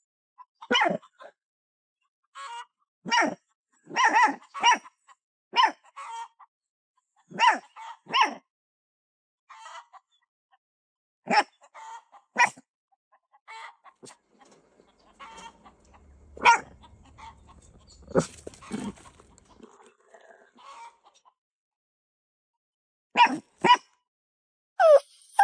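Puppy giving a long series of short, sharp yaps and barks, each call brief and separated by pauses.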